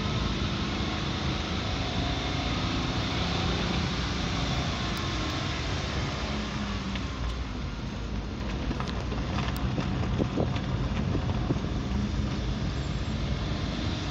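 An engine running steadily with a constant low rumble, with a few light knocks and clicks around the middle.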